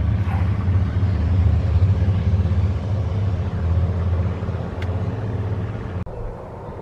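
Steady low motor hum and rumble that cuts off abruptly about six seconds in, leaving a quieter background.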